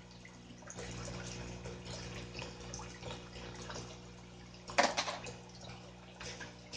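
Small solar water fountain pumps spraying water that splashes and trickles back onto a stone slab and into the pool, a steady patter of drips over a low hum. One brief, louder sudden noise a little before five seconds in.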